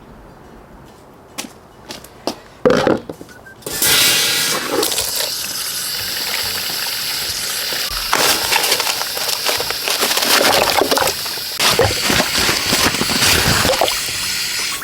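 Running water that starts suddenly and runs steadily with a rushing hiss, after a few light knocks.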